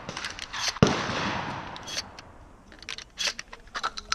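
A single gunshot just under a second in, its report trailing off over about a second, followed by a few lighter clicks and knocks.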